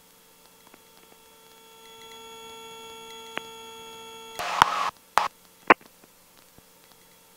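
Faint steady electrical hum with several fixed tones on the helicopter's headset intercom. The tones grow stronger for about two and a half seconds mid-way. A short rush of noise and a couple of sharp clicks follow them.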